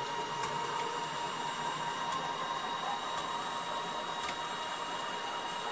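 Stepper motors of a China 6040 CNC router driving the axis at its full rapid jog rate, about 56 inches per minute on the original drive setup: a steady whine with a few high tones that does not change.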